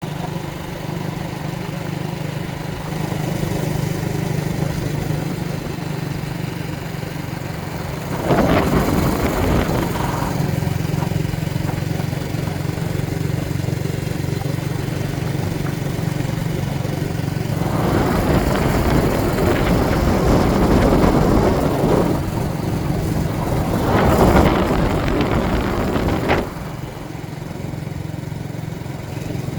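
An engine or motor running steadily at a low hum. Three louder rushes of noise sweep over it, the longest in the second half.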